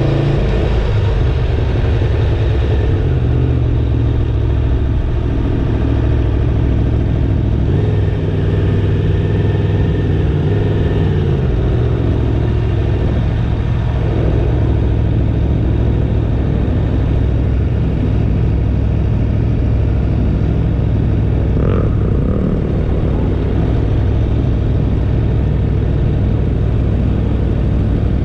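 2019 Aprilia Tuono's V4 engine running steadily at low revs as the motorcycle rolls slowly at around 7 to 20 mph, with a deep, even rumble.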